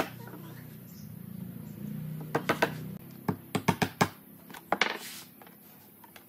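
Sharp wooden knocks and clacks in quick small clusters, like pallet boards being handled or tapped, with a low hum that dies away about three seconds in.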